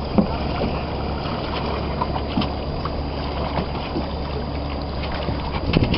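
Wind buffeting the microphone and water washing past the hulls of a Woods Surfsong sailing catamaran under sail, as a steady rushing noise with a low rumble. There are a few light knocks, and a louder thump near the end.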